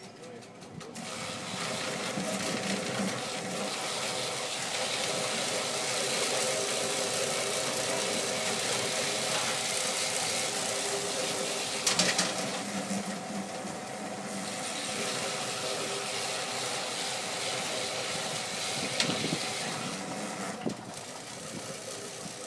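Willow-peeling machine running, its rotating drum stripping the bark off willow rods held into it: a steady motor hum under a loud rushing hiss that sets in about a second in and eases near the end, with a couple of sharp knocks midway.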